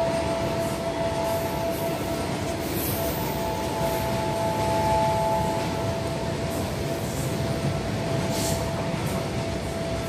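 Goods train of covered wagons rolling through the station: a steady rumble of wheels on rail, with a few sharp clacks and a steady high-pitched squeal running through it.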